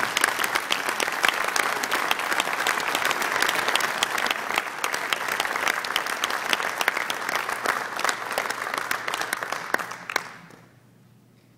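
Audience applauding: many hands clapping in a dense, steady clatter that dies away about ten seconds in.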